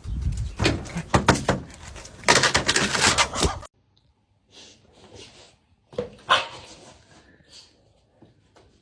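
A dog vocalizing. The loud part cuts off abruptly a little under four seconds in, and quieter, scattered sounds follow.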